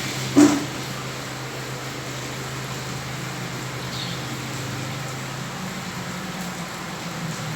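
Steady rain on a flooded street, under a low steady hum of a vehicle engine. A single sharp, loud thump about half a second in.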